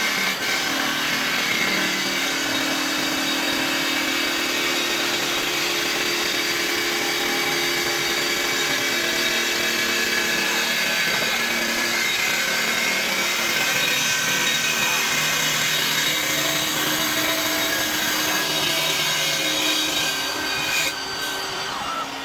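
CNC wood lathe cutting wood under its automatic program: a steady, continuous machining noise of the tool biting into the spinning blank, with high whining tones from the spindle and servo drives, easing slightly near the end.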